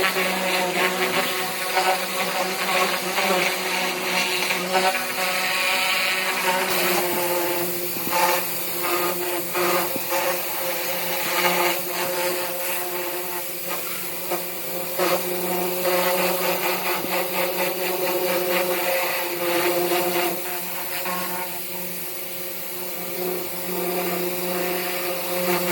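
Pressure washer running with a steady motor hum, its spray hissing and spattering against the car body as it blasts off paint loosened by a chemical stripping dip.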